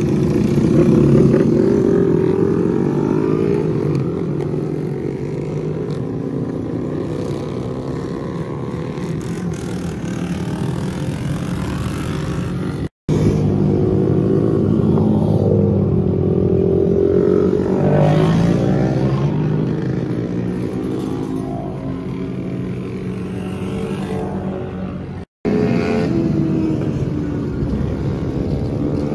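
A pack of small 4mini-class minibikes, Honda Monkey, Dax and Cub types, running round a circuit together. Their small engines overlap, with notes rising and falling as bikes accelerate out of the bends and pass by. The sound drops out for an instant twice.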